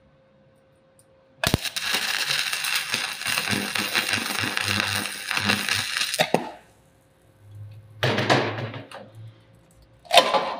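Stick-welding arc struck about a second and a half in, burning with a dense, crackling hiss for about five seconds as the electrode pierces a hole through a thick steel plate, then cutting out. A shorter noisy burst follows about two seconds later.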